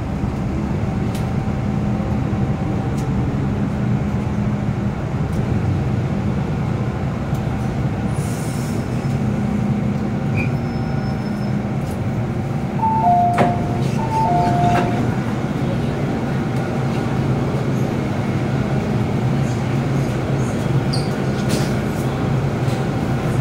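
Cabin sound of an MTR M-train metro car arriving at a station: a steady low running rumble of motors and wheels, with a high-low electronic chime sounding twice about halfway through. Near the end the car's doors open.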